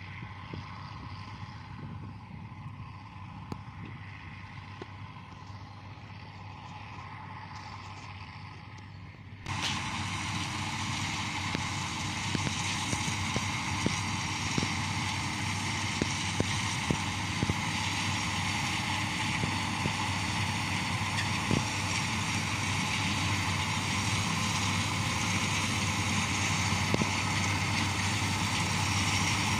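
Bizon Z056 combine harvester running steadily while cutting oats: a constant diesel engine drone with the rush of the working machinery over it. It is fainter at first, then much louder and closer from about nine seconds in.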